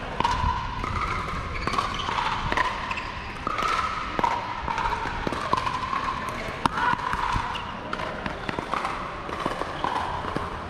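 Pickleball rally: paddles striking the hollow plastic ball and the ball bouncing on the hard court, making sharp pops at irregular intervals.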